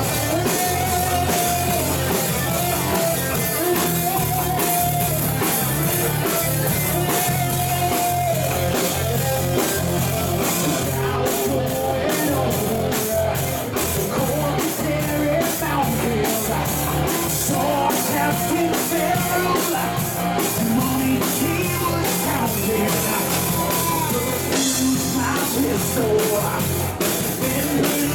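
Live rock band playing: electric guitar, bass and drum kit, with a male singer singing into a handheld microphone.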